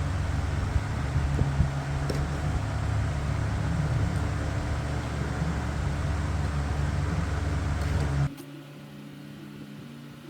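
A machine running steadily with a low hum. It cuts off abruptly about eight seconds in, leaving a much fainter hum.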